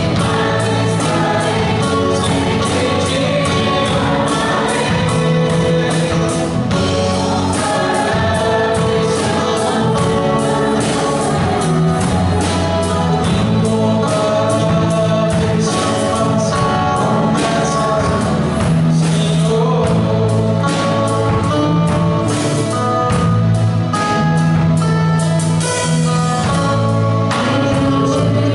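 Live gospel worship song, sung by a man and a woman with a band of acoustic and electric guitars, keyboard and drums, over a steady beat.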